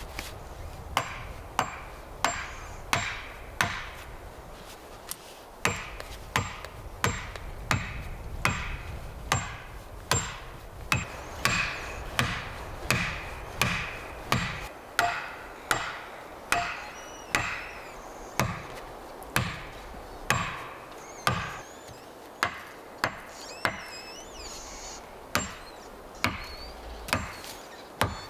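An axe striking the tops of short wooden stakes to drive them into the ground, in a steady run of sharp knocks about two thirds of a second apart. There are two short pauses, one a few seconds in and one near the end.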